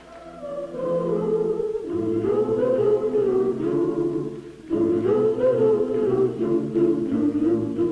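A small choir singing a cappella in slow, held chords. It swells in at the start and breaks off briefly about halfway through before going on.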